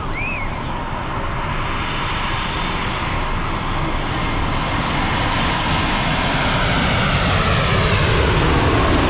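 Twin-engine jet airliner on final approach, passing low overhead with its landing gear down. Its engine noise builds steadily louder, and a falling whine sweeps down in pitch as it comes over near the end.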